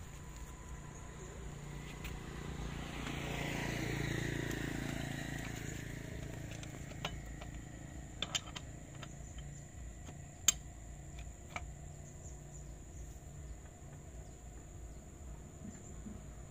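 A vehicle passes by, swelling and fading between about three and six seconds in. Later come a few sharp metal clicks, the loudest about ten seconds in, as a lug wrench turns the last wheel nut tight.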